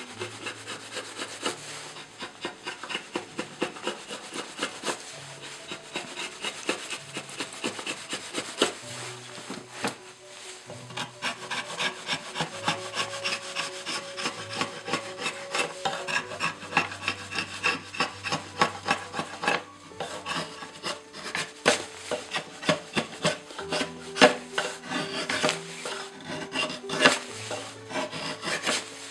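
Wood rasp scraping over the bare wood of an ash branch in quick back-and-forth strokes, about two a second, over quiet background music.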